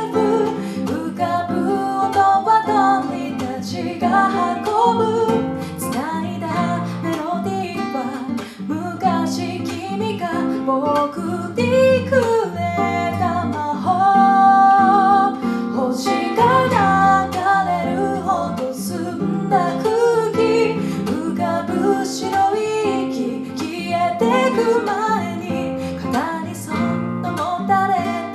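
A song with strummed acoustic guitar and a singing voice, sung in Japanese.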